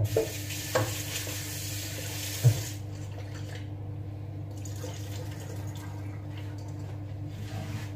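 Kitchen tap running into a sink as something is rinsed under it, with a few knocks against the sink. The stream stops after about two and a half seconds and runs again more weakly a little later.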